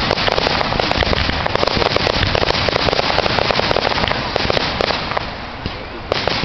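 Aerial fireworks bursting with dense, rapid crackling, many small pops close together, thinning out about five seconds in to a few separate pops.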